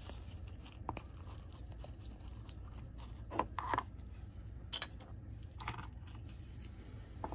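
Faint handling noises of a small paint bottle and brush: a few scattered soft clicks and scrapes over a low steady hum.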